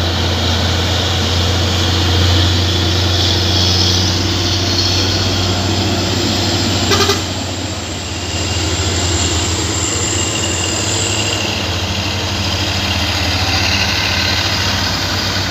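Heavy diesel truck engines running close by as trucks pass, a steady low drone with tyre and road noise.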